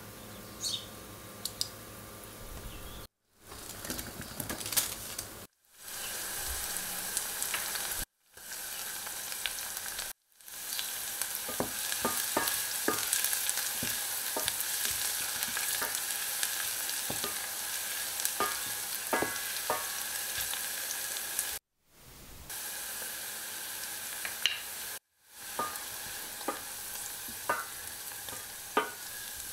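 Scallion whites and chopped garlic sizzling in sesame oil in a stainless steel pot, stirred with a wooden spoon that scrapes and taps against the pot. Near the end, Korean chili powder (gochugaru) is frying in the oil. The sizzle cuts off briefly six times.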